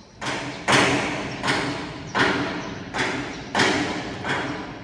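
About seven thumps, roughly one every two-thirds of a second, each fading quickly. The second is the loudest. They come from a hand working the black lens holder of a laser cutting head close to the microphone.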